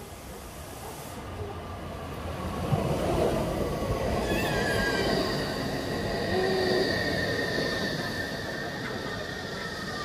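A train running on rails, its rumble swelling over the first few seconds and easing off toward the end, with a thin high squeal from the wheels and a falling whine near the end.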